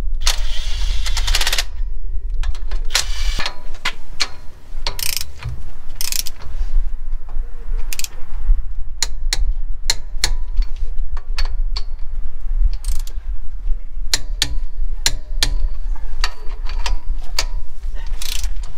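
A short rattling power-tool burst, then a hand socket wrench ratcheting in many quick separate clicks as the nuts holding a wheel spacer onto a Jeep's rear hub are run down, over a steady low rumble.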